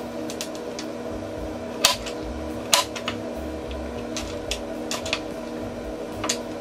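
Irregular sharp clicks and knocks of objects being handled and set down, the two loudest about two and three seconds in, over a steady appliance hum.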